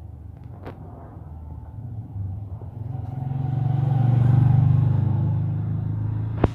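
A motor vehicle's engine running close by, growing louder to a peak about two-thirds of the way through and easing off slightly, with one sharp click near the end.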